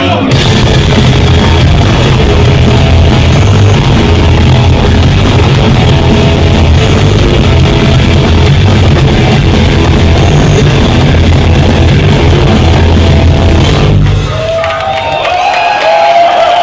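Rock band playing loud and live, with a heavy pulsing low end of bass and drums, until the song stops about fourteen seconds in. The crowd then starts shouting and cheering.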